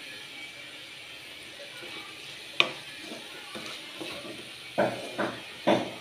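Chopped ridge gourd, onion and grated coconut sizzling softly in a pan, then a wooden spatula stirring and scraping them around. A single sharp click comes about two and a half seconds in, and quick strokes about two a second follow in the last second or so.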